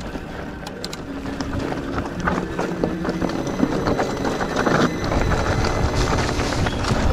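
Mountain bike ridden over rough trail: tyre noise and many small clicks and rattles, with a low wind rumble on the microphone growing louder about five seconds in.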